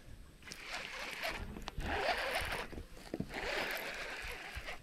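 Baitcasting reel being cranked, a whirring, zipper-like hiss in three stretches of about a second each with short pauses between.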